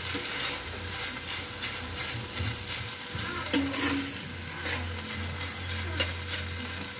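Boiled noodles being stir-fried in oil and sauce in a wok: a steady sizzle, with the scrape and click of a metal spatula mixing them against the pan now and then.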